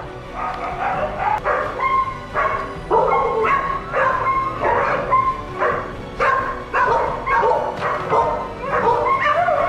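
Many dogs barking and yapping over one another, a dense run of short barks with no let-up.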